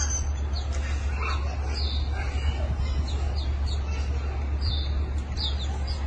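Small caged songbirds chirping in repeated short, high, falling notes, over a steady low rumble.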